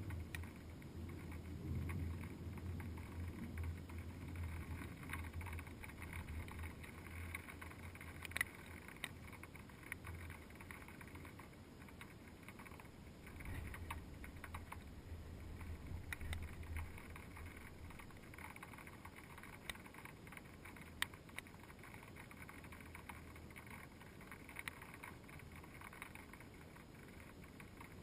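Faint, muffled storm ambience heard through a GoPro's sealed waterproof housing: a low rumble that fades about halfway through, with a few scattered faint ticks.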